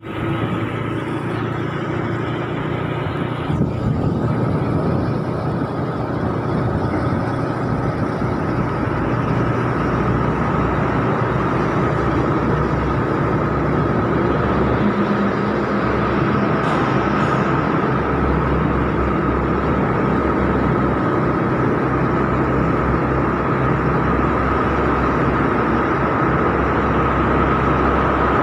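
Motorcycle riding at speed, heard from the rider's seat: a steady mix of engine, tyre and wind noise with a faint steady whine. It grows a little louder over the first ten seconds as the bike enters a concrete underpass.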